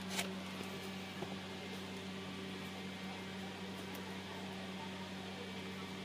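A steady low machine hum with a constant hiss behind it, and a single click just after the start.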